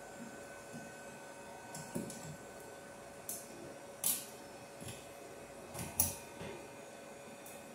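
Short metallic clicks and scrapes of hands working wires and armoured cable at a metal electrical junction box, about half a dozen of them between two and six seconds in, over a faint steady hum.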